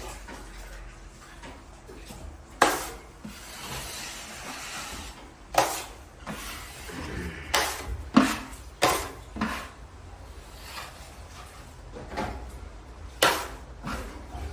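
Scraping and a handful of sharp knocks from drywall tools working a plastic bucket of joint compound as a new batch is made up.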